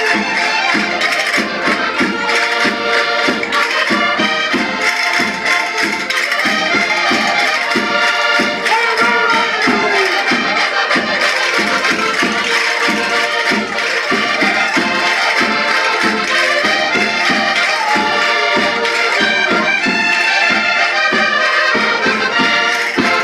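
Several diatonic button accordions playing a lively folk dance tune together over a steady, regular beat.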